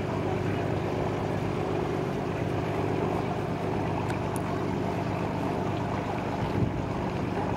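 Tour boat's engine running steadily at cruising speed, a constant low drone over a rush of water and wind. A brief low thump comes about six and a half seconds in.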